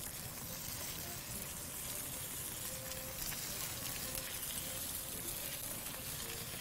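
Lamb loin steaks searing on a hot, oiled flat-top griddle: a steady sizzling hiss with fine crackle.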